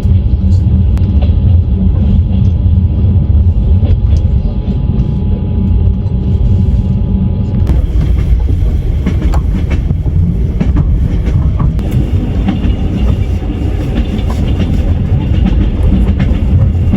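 Train wheels running on the rails, a loud steady low rumble with repeated clatter and knocks of the wheels. About halfway through, the sound turns brighter with added hiss.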